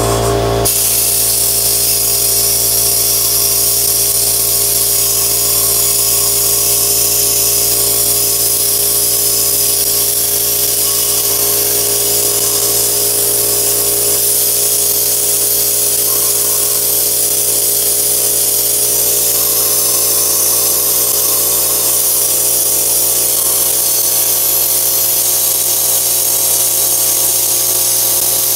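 Sandblasting gun in a blasting cabinet blasting abrasive at a rusted steel wrench to strip the rust: a loud, steady hiss of compressed air and grit that runs without a break.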